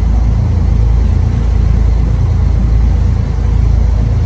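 Steady low rumble on board a moving boat, its engine running.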